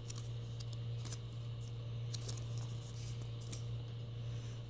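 Faint handling noise: light scattered clicks and rustles as fingers handle a foam bread-slice squishy toy, over a steady low hum.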